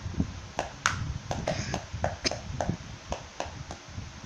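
Thin sticks tapping on notebooks and a plastic toy drum in a quick, uneven drumming rhythm, about four or five light taps a second.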